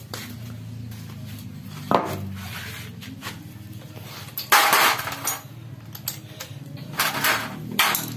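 Metal transmission parts clanking and knocking as an Isuzu Panther manual gearbox is dismantled by hand: a sharp knock about two seconds in, then louder clattering around the middle and again near the end.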